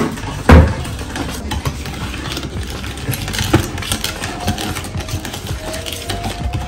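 Wooden spoon stirring and beating a mixture in a plastic mixing bowl: repeated irregular knocks and scrapes against the bowl, with one loud knock about half a second in.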